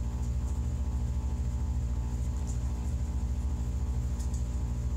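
A steady low hum with a fast, even pulsing, under faint scratches of a pencil writing on a paper pad.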